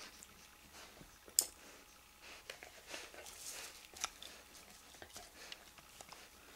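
Faint handling sounds of steel tweezers pulling a surgical skin staple out of the skin: one sharp click about one and a half seconds in, then scattered soft clicks and rustling.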